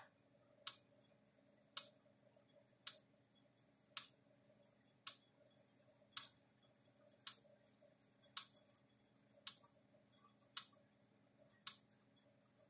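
Electric Shepherd ESM 200 fence energizer's reduced-power output sparking across a small gap from a screwdriver to pliers on the ground terminal: a sharp snap with every pulse, about one every 1.1 seconds, twelve in all. A faint steady hum lies underneath.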